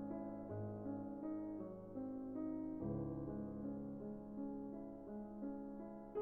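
Background music: a gentle piano melody with sustained chords.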